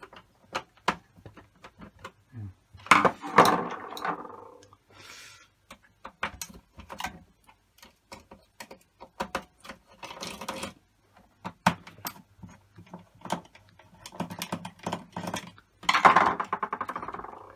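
Screwdriver work on a PlayStation 4 power supply: sharp clicks and small scrapes as the screws are turned out, with two louder clattering bursts, about three seconds in and again near the end.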